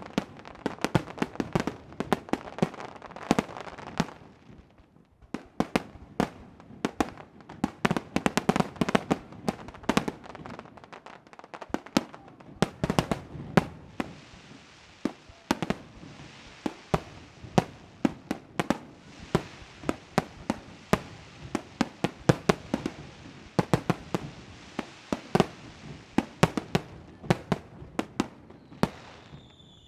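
Aerial fireworks bursting in rapid, overlapping volleys: a dense run of sharp bangs and crackling with a rumbling echo, thinning briefly a few seconds in before building again.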